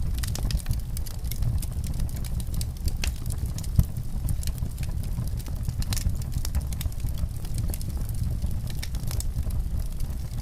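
Wood fire crackling in a fireplace: irregular sharp pops and snaps over a steady low rumble, with one louder pop about four seconds in.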